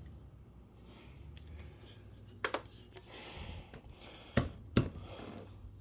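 Plastic refrigerator drawer parts being fitted and snapped into place: a sharp click about two and a half seconds in and two louder clicks close together near the end, with some handling rustle, over a low steady hum.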